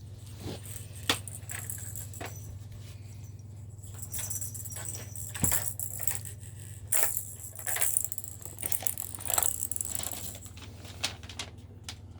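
Irregular jingling, rattling clicks of a new cat toy being handled and put together, over a low steady hum.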